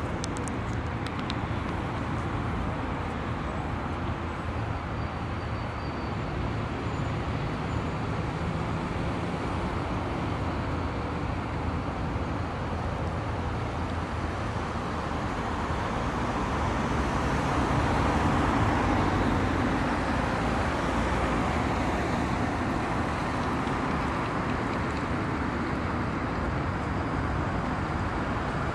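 Steady road traffic noise, an even rush of passing cars, swelling slightly a little past the middle.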